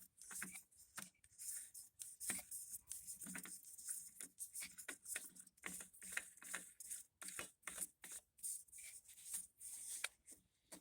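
An oil filter being twisted onto its threaded mount by hand: faint, irregular rubbing and scraping strokes.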